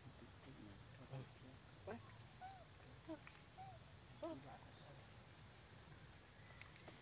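Faint outdoor ambience: a steady high insect drone, with a handful of short, faint rising-and-falling calls about two to four seconds in.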